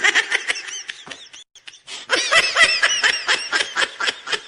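A person laughing: a run of quick, high-pitched giggles that breaks off for a moment about a second and a half in, then picks up again.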